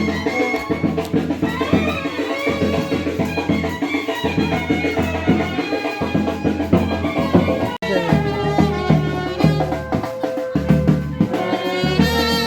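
Music with a steady drum beat and melodic instruments. It cuts off abruptly for an instant about eight seconds in, then carries on with a different passage.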